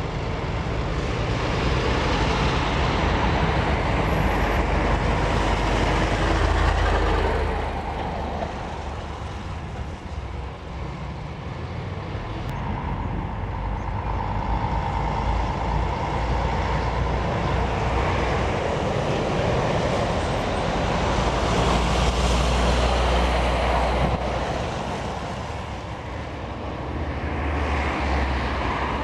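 Heavy diesel lorries passing one after another, their engines and tyres swelling as each comes near and fading as it goes. There is a loud pass in the first seven seconds, a lull, a second loud pass about twenty seconds in, and another lorry coming up near the end.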